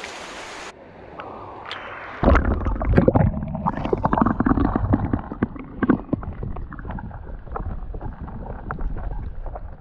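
Muffled sound of moving stream water picked up by a camera held underwater. The highs drop away about a second in as it goes under. About two seconds in a loud low churning rumble starts, with many scattered clicks and knocks.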